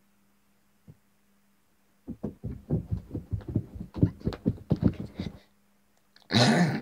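Quick, heavy thudding steps on the floor right beside a camera lying on it, several a second, for about three seconds. Near the end comes a loud burst of rubbing and handling noise as the camera is grabbed.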